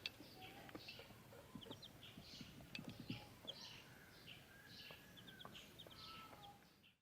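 Faint high peeping of young poultry, about two calls a second, fading out near the end.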